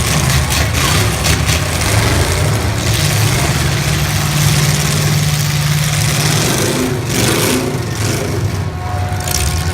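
Engines of several full-size demolition derby cars running and revving, with a few short sharp knocks.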